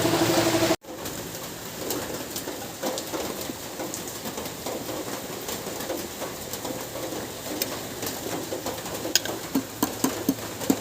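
A harsh rasping noise cuts off abruptly under a second in. Then birds cooing in the background, with a few light clicks and taps near the end.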